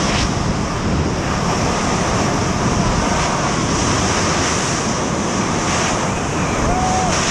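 Loud, steady rush of wind buffeting the camera microphone during tandem skydiving freefall.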